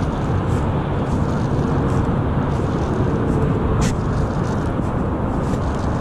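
Steady low rumble of wind buffeting a chest-mounted microphone while a baitcasting reel is cranked to retrieve a crankbait, with a short tick a little before the four-second mark.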